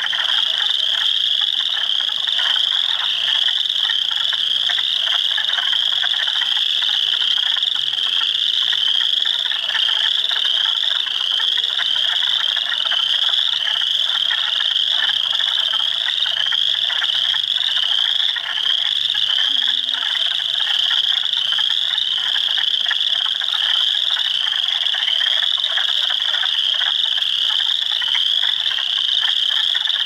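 A dense spring frog chorus of overlapping calls that never breaks. High rising peeps of spring peepers stand out on top, over a thick layer of lower clucking and trilling from wood frogs and chorus frogs.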